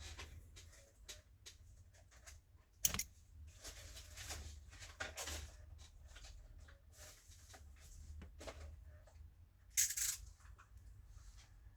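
Light clicks and short rustles of close hand work with small tools and thin double-sided adhesive tape, with a sharper click about three seconds in and another near ten seconds.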